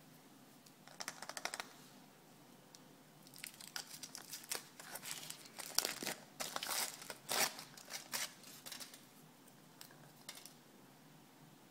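Aluminium foil wrapper of a chocolate surprise egg being peeled off and crumpled by hand: irregular crinkling and tearing in short bursts, a brief flurry about a second in, then denser and louder crackling through the middle, tailing off into a few last crinkles.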